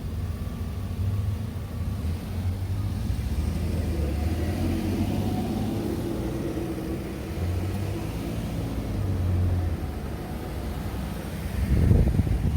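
Road traffic passing: engines and tyres rumbling low and steady, swelling as vehicles go by, with a louder vehicle passing close near the end.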